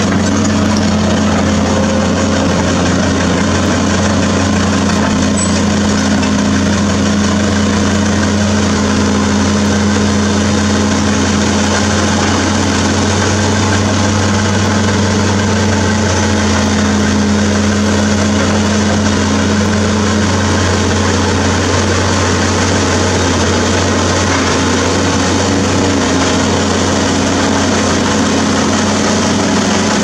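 CAT 336D2 hydraulic excavator's diesel engine running steadily, a loud, even low drone with no marked revving or knocks.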